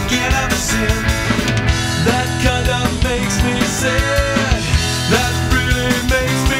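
A rock band's 1994 CD recording playing: full band music with a steady drum beat.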